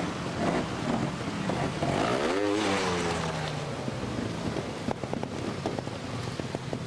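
Two-stroke trials motorcycle engine blipped in a quick burst that rises and falls in pitch about two seconds in, then running low with a string of sharp clicks.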